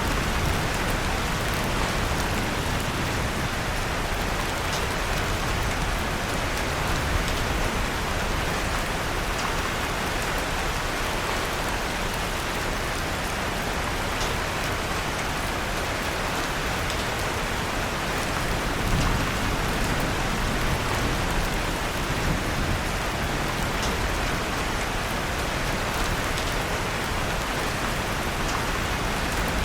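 Steady rain falling, with a few faint sharp crackles from a wood fire mixed in.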